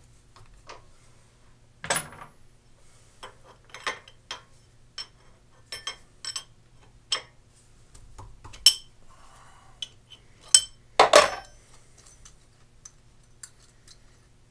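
Metal tools and parts clinking and knocking against the steel milling vise and jig as a CAT 30 tool holder is worked at, stuck tight in the tapered bore of the jig block. It is a scatter of light clinks with louder knocks about two, nine and eleven seconds in, over a faint steady hum.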